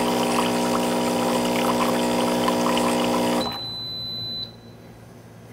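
Java Brew Collection 125 coffee machine running its rinse cycle: a steady motor hum with water pouring through the dispensing tubes into a mug. The hum and pouring stop suddenly about three and a half seconds in, followed by a single high beep lasting about a second.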